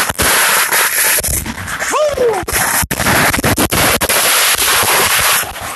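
Consumer fireworks crackling and banging in a dense, almost unbroken barrage of sharp pops and reports, very loud and close. The din eases a little near the end.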